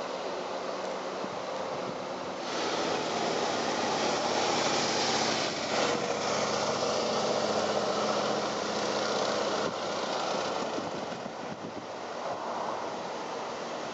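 Road traffic: a line of cars and SUVs driving slowly past, engine and tyre noise that swells from about two seconds in and eases off after about ten seconds.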